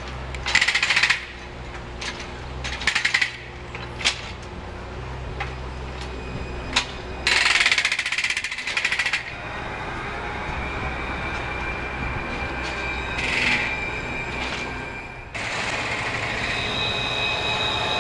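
Several short bursts of rapid mechanical hammering, like a pneumatic breaker at roadworks beside the tramline, the longest about halfway in. Near the end a Luas tram runs in close, with a steady high whine and wheel noise.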